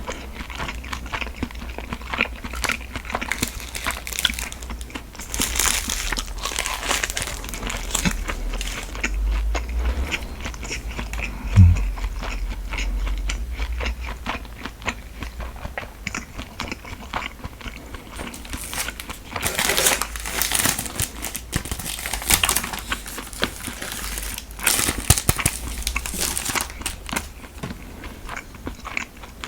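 Close-miked eating sounds: biting and chewing of convenience-store rice food, with spells of crinkling from plastic packaging being handled. A single low thump comes about a third of the way in.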